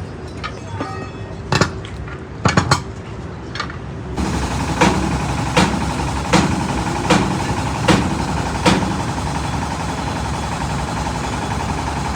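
Hammer striking metal: a few scattered blows, then a steady run of six blows about three-quarters of a second apart, over a continuous mechanical hum.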